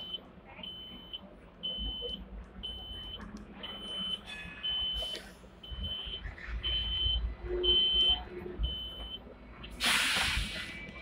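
A Hong Kong tram's electronic warning beeper sounds a steady high-pitched beep, repeating a little faster than once a second and stopping about nine seconds in. Under it the tram rumbles as it moves off, and near the end comes a short, loud hiss.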